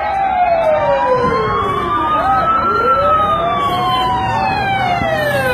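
Several sirens wailing at once, each a slow rise and fall in pitch lasting a few seconds, out of step with one another so that their tones cross and overlap.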